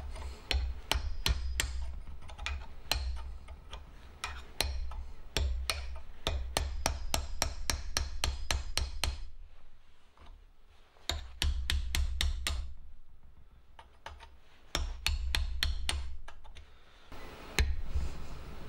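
Hammer tapping a steel punch against the seized C-clip on a turbocharger's centre housing held in a vise, to break the clip's seal. The strikes come in quick runs of sharp metallic taps, about four a second, with two short pauses in the second half.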